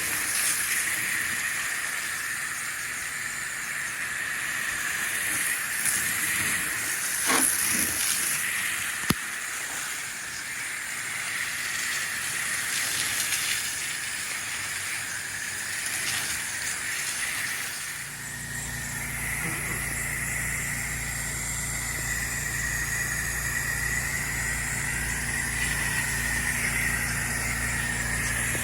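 Pressure washer spray hissing steadily as the wand works the building, with one sharp click about nine seconds in. About two-thirds of the way through, a steady low engine hum comes up under the hiss.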